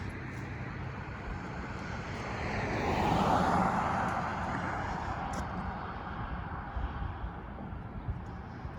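A vehicle passing by on the street, its tyre and engine noise building to a peak about three seconds in and then slowly fading.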